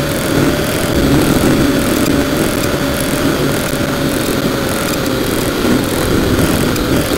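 Quadcopter drone's electric motors and propellers running in flight, heard up close from the drone's own camera: a loud steady buzz with a whine that sags slightly in pitch.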